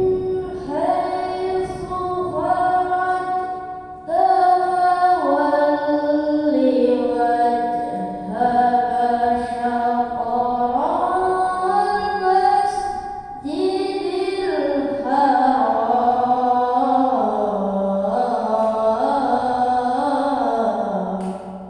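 A boy reciting the Qur'an in the melodic qira'at style, chanting long ornamented phrases of held notes that step and glide in pitch. He takes a fresh breath about four seconds in and again about two-thirds of the way through, and the last phrase ends just before the close.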